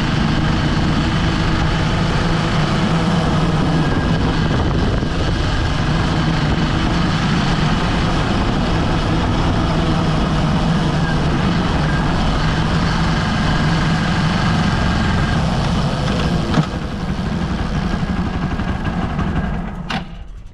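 Hero Xpulse 200 4V Pro's single-cylinder engine running steadily as the motorcycle rides along a dirt trail, heard up close by the rear wheel and chain. About three-quarters of the way through there is a click and the engine note drops, and the sound falls away sharply at the end.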